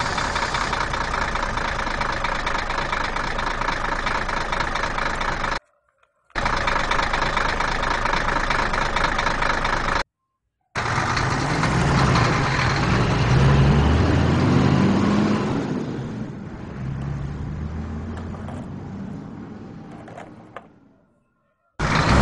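A vehicle engine running, cut off abruptly twice like edited audio. From about eleven seconds in, a lower engine rumble rises and falls in pitch, then fades away near the end.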